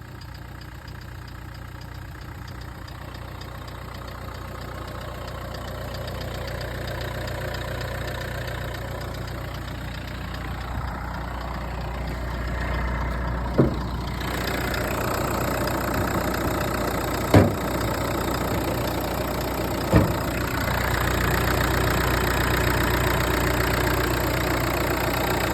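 Renault K9K 1.5 dCi diesel engine idling, growing louder over time, with three sharp knocks about halfway through. The owner describes an intermittent knock like that of hydraulic lash adjusters; the injectors have tested fine on a bench.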